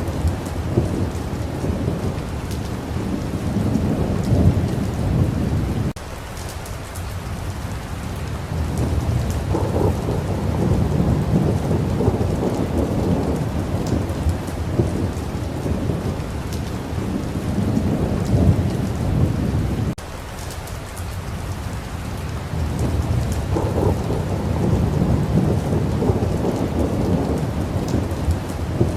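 Steady rain falling with heavy rolling thunder rumbling underneath. The rumble swells and fades, and breaks off suddenly twice, about six seconds in and again around twenty seconds.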